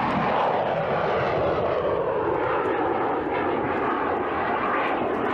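Jet aircraft passing overhead: a loud, steady rushing noise with no beat to it, slowly falling in pitch as it goes by.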